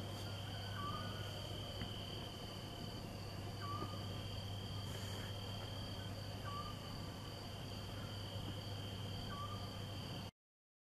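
Crickets trilling steadily at a high pitch, with a short chirp repeating about every three seconds over a steady low hum. The sound cuts off suddenly near the end.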